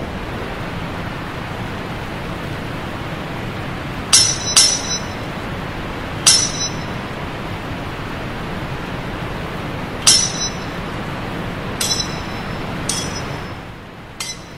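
Sword-fight sound effect: steel blades clashing in about seven sharp ringing clinks at irregular intervals. Beneath them is a steady rushing background noise that drops away near the end.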